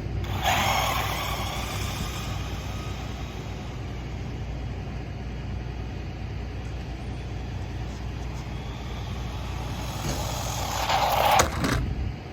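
Brushless 1/16-scale RC jeep on a 2S LiPo speeding off along pavement, its motor and tyres fading as it runs away, then coming back and passing close near the end, loudest just before it drops away. A steady low rumble lies underneath.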